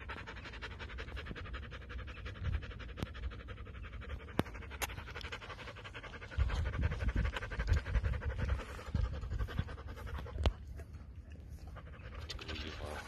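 A dog panting fast and close to the microphone, an even run of short breaths. A low rumble joins about halfway through.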